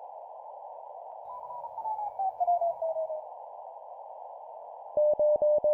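Morse code sidetone over a steady narrow band of hiss. A run of short beeps steps down in pitch about a second and a half in. Near the end, one steady tone keys five dashes at 20 words per minute: the digit zero.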